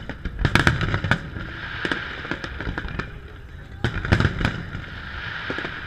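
Aerial fireworks shells bursting over open water, a quick cluster of sharp bangs about half a second in and another about four seconds in, with single pops between.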